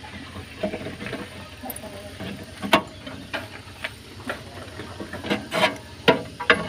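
Pliers clicking and scraping on the thin sheet-metal shield under a Suzuki Carry as it is bent upward to clear the tie rod it was rubbing on. Irregular sharp metallic clicks, one standing out about two and a half seconds in and several more close together near the end.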